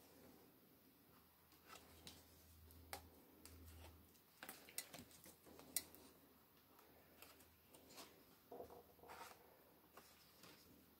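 Faint rustling and crisp clicks of thick, paint-stiffened art-journal pages being handled and turned, with a cluster of sharper clicks around the middle and another flurry of rustles near the end.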